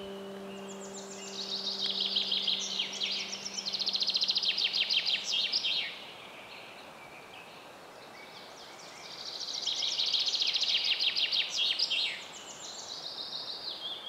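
A songbird singing two long, fast, trilling high-pitched phrases of about four to five seconds each, with a shorter phrase near the end. A held note of soft background music fades out in the first few seconds.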